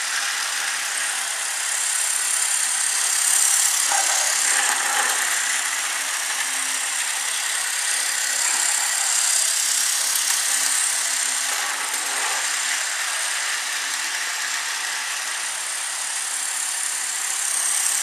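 Tyco GG1 model electric locomotive running with its freight cars on the track: a steady whir of the small motor with the rattle of wheels on rails, swelling a little as it passes close by.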